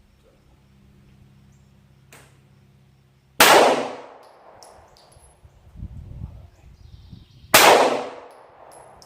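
Two 9mm pistol shots from a Glock 19 Gen4, about four seconds apart, each with a short ringing tail.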